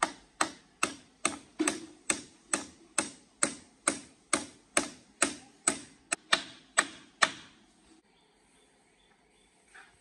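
A steady run of sharp mechanical clicks, about two and a half a second, stopping about seven seconds in.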